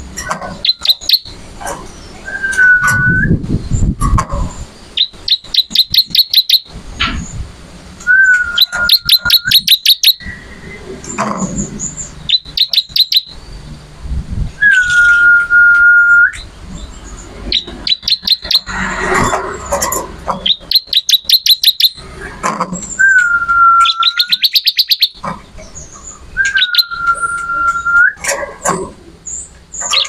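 Ciblek (bar-winged prinia) singing: fast runs of high, sharp ticking notes alternating with long, steady whistled notes about a second each, repeated over and over.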